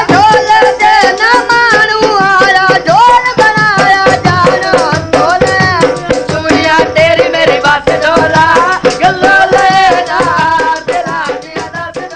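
Punjabi folk music: a wavering melody over a quick, even beat of dhol drum and chimta tongs, fading out near the end.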